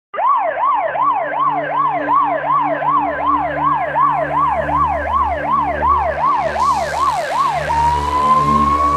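Police car siren on a fast yelp, sweeping up and down about twice a second, over the low rumble of the car at high motorway speed. Near the end it switches to a single slowly rising tone, and a hiss comes in.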